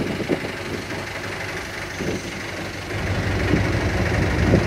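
Boat engine idling: a steady low hum that grows louder about three seconds in.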